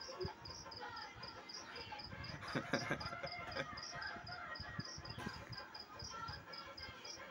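Faint music playing, with soft low thumps scattered through it and a steady high chirp repeating about three times a second.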